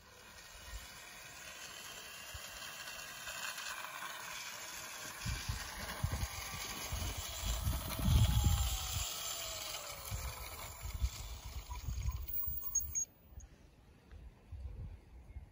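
Small electric motor and gearing of a battery-powered Simplex model locomotive running along garden-railway track, with wind gusting on the microphone. A faint whine falls in pitch about eight to ten seconds in.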